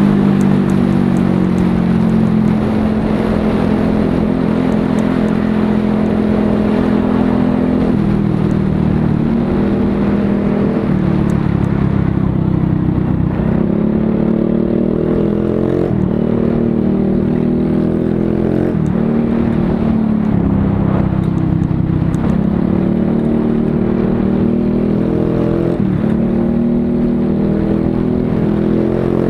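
TVS Ntorq 125 scooter's single-cylinder engine running through an aftermarket SC Project exhaust. It holds a steady speed for several seconds, then is revved up and falls back again and again, about every three seconds.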